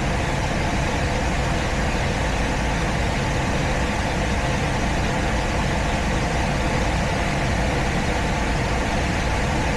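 Gas furnace running with a steady whir of its fan and a low hum.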